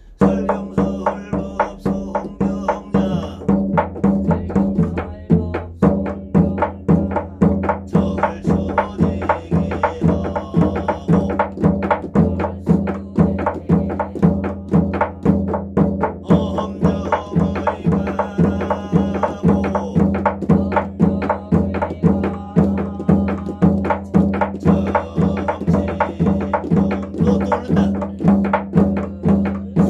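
A drum beaten in a steady, even rhythm, with evenly spaced strokes that ring with a low pitched tone. It is a Korean shamanic drum rhythm (jangdan) being practised.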